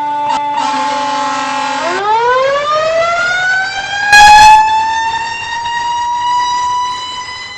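Fire engine siren wailing: a steady high tone sags slightly, then the pitch sweeps up smoothly over several seconds. An air horn blasts for over a second about half a second in, and a louder, short blast comes about four seconds in.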